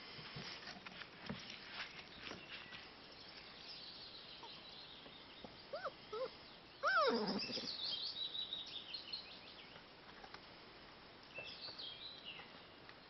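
Smooth fox terrier puppies: two short yips about six seconds in, then a louder yelp falling in pitch. Small birds sing in snatches of high chirps in the background.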